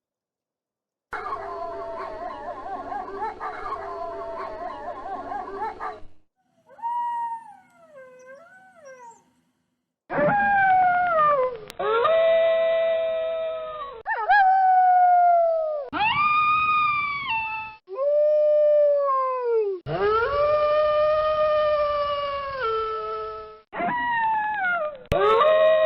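Wolves howling: first a chorus of several overlapping howls, then softer wavering whines, then a string of single long howls, each sliding down and then holding, that follow one another with abrupt starts and stops.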